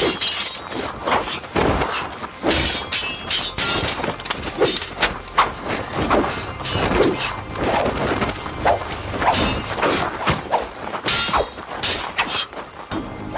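Film sword-fight sound: katana blades clashing again and again, sharp metallic strikes with a brief ring, coming several times a second amid swishes and scuffling.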